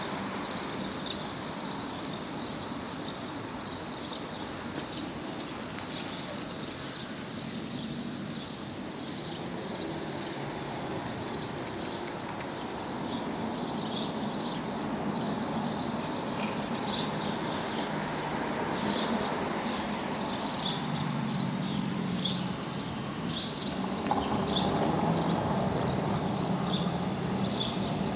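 Outdoor city ambience: a steady wash of traffic noise with small birds chirping again and again, and a low hum that grows louder in the second half.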